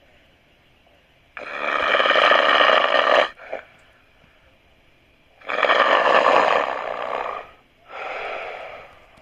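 A person snoring loudly: two long snores about four seconds apart, the second followed at once by a shorter, softer one.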